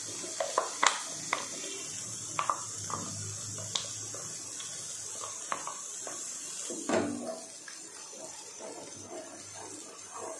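Wooden spoon knocking and scraping ground paste out of a mixer-grinder jar into a pan of gravy: a scattering of sharp taps, thickest in the first few seconds and again about seven seconds in, over a steady hiss.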